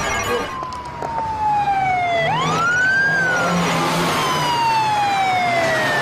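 Police car siren wailing: one tone falls slowly, sweeps sharply back up about two seconds in, then falls slowly again, over a low vehicle hum.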